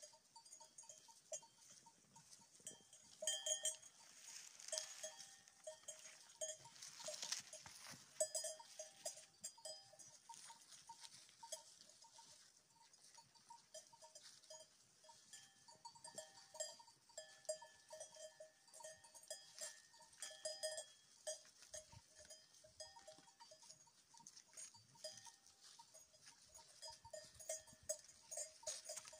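Bells on a grazing flock of sheep clinking faintly and irregularly, many short rings overlapping.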